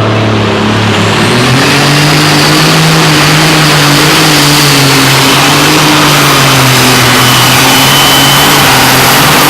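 Competition pulling tractor's engine running flat out during a pull, very loud. Its pitch climbs about a second and a half in and then holds fairly steady, with a faint high whine above it.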